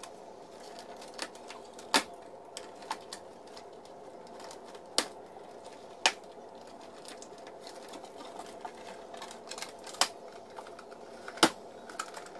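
Cardboard box and packaging being handled while an RC truck is worked free of it: scattered sharp clicks and snaps, about half a dozen of them loud, over a steady faint hum.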